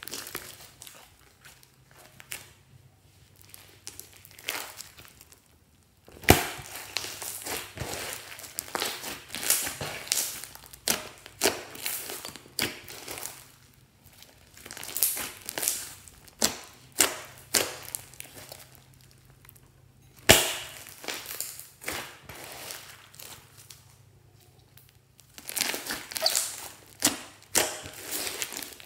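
Hands squeezing, folding and pressing glossy slime studded with small beads, giving clusters of wet crackling and popping clicks. Two sharper, louder snaps come about six and twenty seconds in, with quieter lulls between the bouts of kneading.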